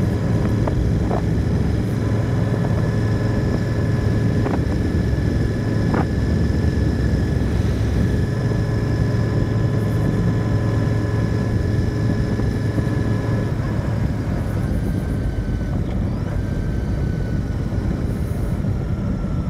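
Royal Enfield Continental GT 650's parallel-twin engine running at a steady cruise with wind rush. About two-thirds of the way through its pitch starts to fall gently as the bike eases off and slows.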